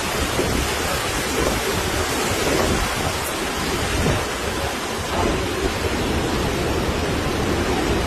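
Hurricane wind and driving rain: a steady rushing noise with a low, uneven rumble of gusts on the microphone.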